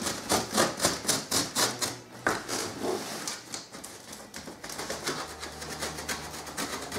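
Orange snap-off utility knife slitting duct tape and plastic wrap along the edge of a cardboard box: a quick series of short scratchy strokes, about four or five a second, loudest in the first two seconds and fainter after that.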